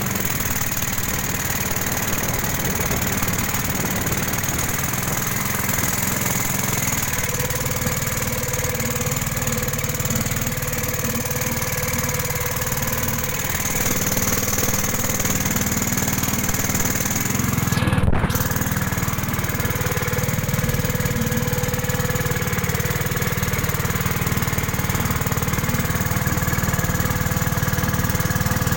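Pump boat's outboard-style engine running steadily at cruising speed, with water rushing past the hull; a little louder from about halfway.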